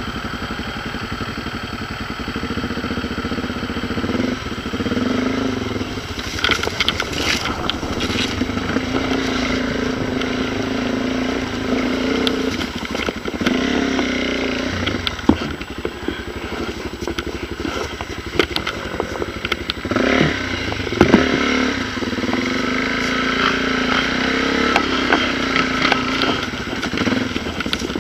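Dirt-bike engine revving up and down repeatedly under load, with scattered knocks and rattles from the bike.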